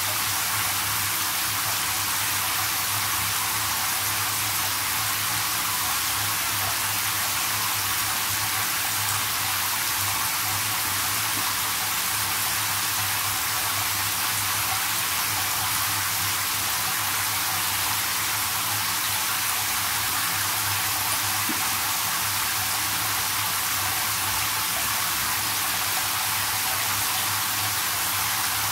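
Handheld shower head spraying steadily into a filling whirlpool bathtub: an even, unbroken hiss of falling water.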